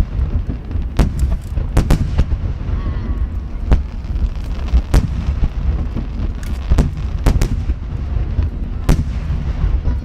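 Large shakudama (30 cm) aerial firework shells bursting one after another in a rapid barrage. About ten sharp cracks come at uneven intervals over a continuous deep rumble of booms.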